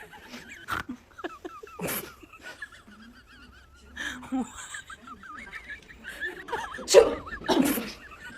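Fake sneezes played as a prank: sharp, sudden sneeze bursts, two short ones in the first two seconds and the loudest pair close together near the end, with giggling laughter in between.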